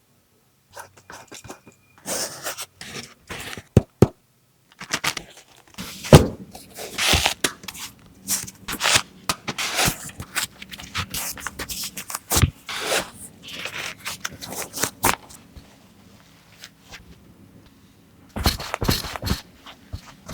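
A shoebox and its paper packing handled: a busy run of scrapes, rustles and sharp knocks, pausing for a couple of seconds before more rustling near the end.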